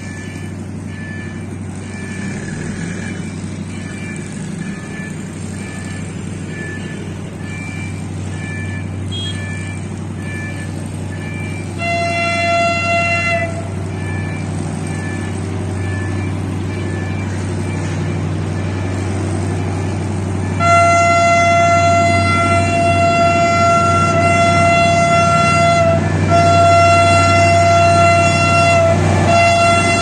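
Level-crossing warning signal pulsing in a steady repeated tone over the low rumble of an approaching DE 24000 diesel locomotive. The locomotive's air horn sounds one short blast about twelve seconds in, then long blasts from about twenty seconds in, broken twice.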